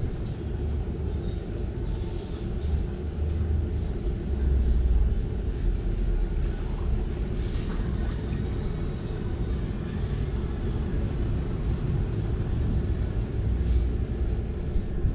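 Steady low rumble of city street traffic, swelling and easing a little, with faint scattered street noise above it.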